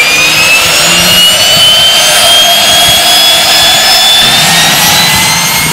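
Aircraft turbine engine spooling up: a loud whine that rises in pitch over the first few seconds and then climbs only slowly, over a steady rush of engine noise.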